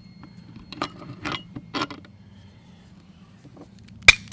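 Loose metal edger parts being handled: a few light clinks in the first two seconds as the blade bracket and old blade come off the shaft. Near the end, loud, sharp metallic clicks start in quick succession.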